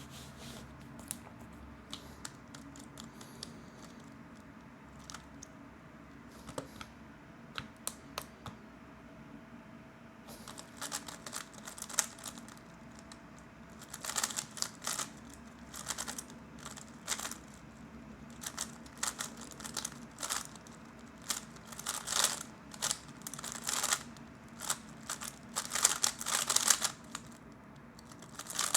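3x3 speedcube being turned by hand: sparse clicks at first, then from about ten seconds in, fast runs of clicking and clacking layer turns in bursts, growing louder toward the end.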